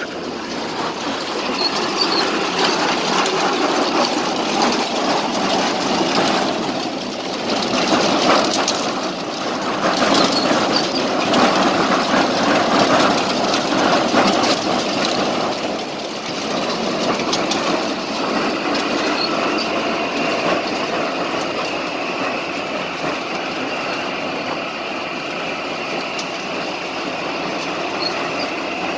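Tractor-drawn apple harvester running with its elevator conveyor tipping cider apples into a trailer: a dense mechanical clatter of the machine over the tractor's engine, with apples tumbling. It is loudest for a stretch in the middle.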